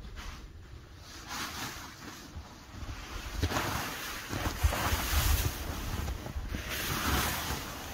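Red Hilleberg 10UL nylon tarp rustling and flapping as it is pulled up off the snow and bunched, in swells from about three and a half seconds in, over wind on the microphone.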